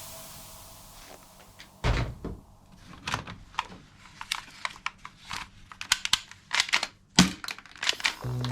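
Toy gun being handled: a thunk about two seconds in, then a run of irregular sharp clicks and knocks of plastic parts.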